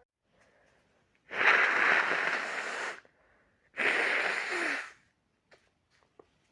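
A person with a head cold blowing their nose hard twice, each blow a long rush of air through the congested nose, the first about a second and a half and the second a little over a second.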